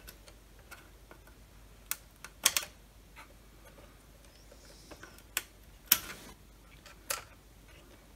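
Small plastic wire-harness connectors being worked loose and unplugged from a circuit board: a scatter of light plastic clicks, the loudest about two and a half and six seconds in.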